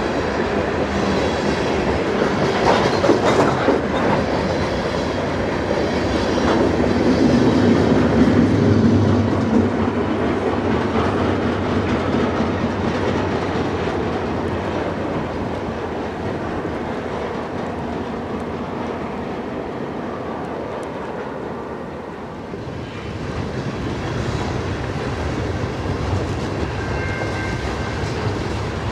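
Freight train rolling past, its wheels clicking and clacking over the rail joints in a steady rumble that swells and eases as the cars go by.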